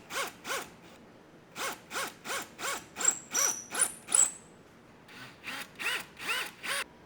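Power drill run in short trigger pulses, about three a second, each a brief whine that rises and falls in pitch, boring wiring holes through a sycamore guitar body between the pickup cavities. High squeaks come in about three to four seconds in.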